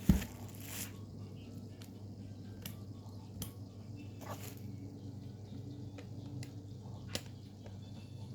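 A single heavy thump as something is set down, then scattered light clicks and taps of objects being handled, over a steady low hum.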